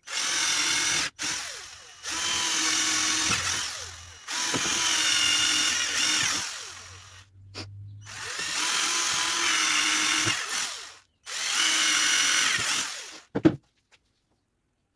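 Power drill running in a series of bursts of one to three seconds each, with brief stops between them and the pitch dropping as each burst ends. A sharp knock comes near the end.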